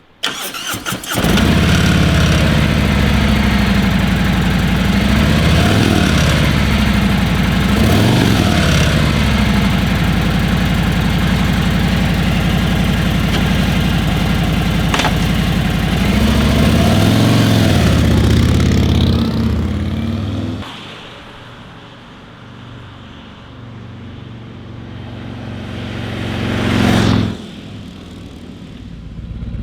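Harley-Davidson Milwaukee-Eight V-twin touring motorcycle starting up about a second in, then idling with several throttle blips that rise and fall in pitch. After about 20 s it drops to a quieter level, then swells to a loud peak and falls away near the end.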